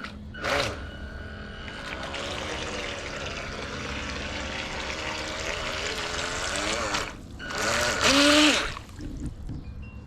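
Small electric RC racing boat running in water, its propeller churning and spraying water in a steady hiss. There is a louder surge about eight seconds in.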